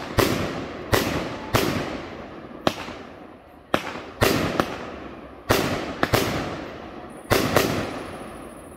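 Fireworks display: aerial shells bursting overhead. About a dozen sharp bangs come at uneven intervals, each followed by an echo that dies away over about a second.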